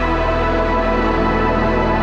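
Background music: a steady, sustained ambient track.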